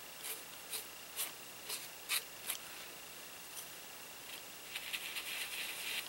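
Flat paintbrush dabbing acrylic paint onto a painted board: a string of short bristle strokes about every half second, then a quicker run of scratchy scrubbing strokes near the end.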